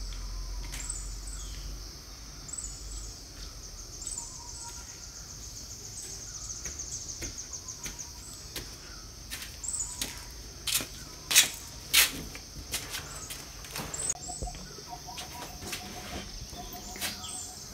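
Outdoor insect and bird ambience: a steady high insect buzz that pulses fast for a few seconds, with scattered bird chirps. A few sharp clicks stand out about two thirds of the way through.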